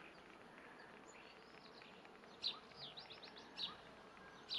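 Faint outdoor background with a few short, high bird chirps, including a quick run of four or five chirps about three seconds in.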